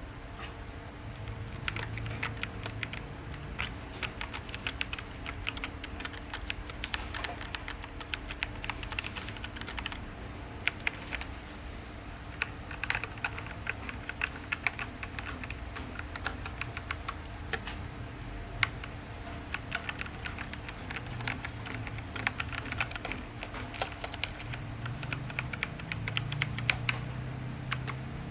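Typing on an Azio MK-MAC-U01 mechanical keyboard with K-Switch keys: fast, irregular keystroke clicks running on continuously.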